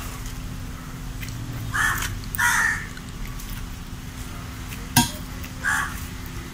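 A bird calling in short calls, three or four times, and a single sharp knock about five seconds in as a hoe strikes the ground during digging.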